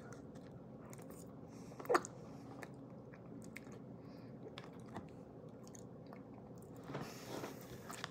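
A person biting and chewing a forkful of crustless pizza made of cheese, sauce and pepperoni, with light clicks scattered through and one short, sharper sound about two seconds in.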